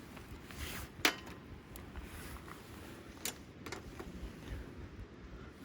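Two sharp clicks over quiet background noise: a strong one about a second in and a weaker one a little after three seconds in.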